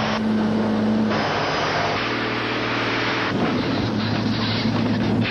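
Semi-truck engine running at speed, heard as a steady drone under road noise, its pitch shifting slightly a few times.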